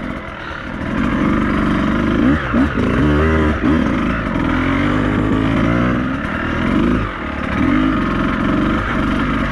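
Beta 200RR two-stroke enduro motorcycle engine being ridden off-road, its revs rising and falling with the throttle and dropping sharply several times as the throttle is chopped.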